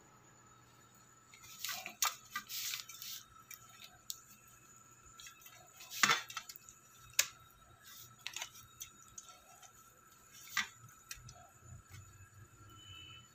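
Clinks and taps of a stainless steel plate, scattered and irregular, as a whole fish is turned and rubbed with wet spice paste by hand; the loudest clink comes about six seconds in.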